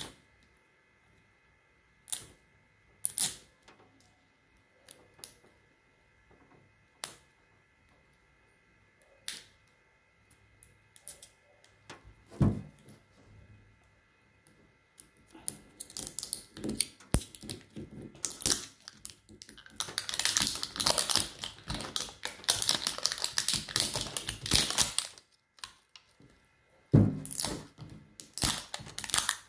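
Crinkling and tearing of the paper-and-plastic wrapping on an L.O.L. Surprise ball as fingers pick and peel a layer off. Scattered single crackles at first, then about halfway through a long stretch of dense crinkling and ripping, with another burst near the end.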